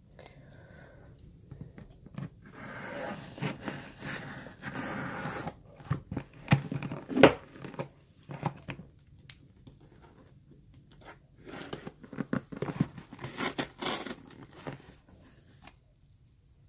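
Packing tape being torn and peeled off a cardboard shipping box, in three rasping stretches with sharp knocks of cardboard being handled among them.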